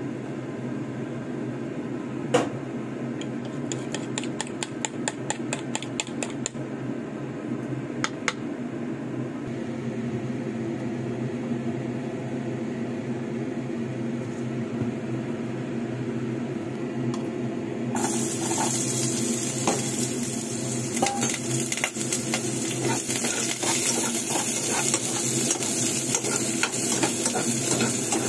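A fork whisking beaten eggs in a bowl, making rapid clicks, over a steady low hum. About two-thirds of the way through, hot oil in a nonstick pan starts sizzling as sliced red onions go in, with a utensil clicking and scraping against the pan as they are stirred.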